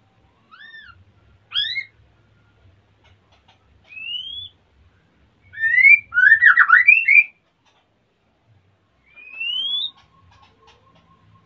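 Male white-rumped shama singing in breeding condition: short clear whistled phrases, mostly rising slurs, separated by pauses. The loudest is a quick tumbling run of notes about six to seven seconds in.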